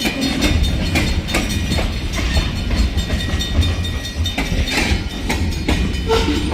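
Freight train rolling past, a steady low rumble with the wheels clicking irregularly over the rail joints.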